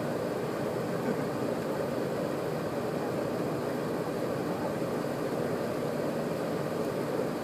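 A car engine idling: a steady hum that holds level, with no revving.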